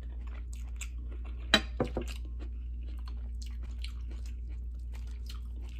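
Close-miked chewing and mouth noises, with small crackles and clicks as a cooked shrimp's shell is peeled by hand. A sharper click comes about one and a half seconds in.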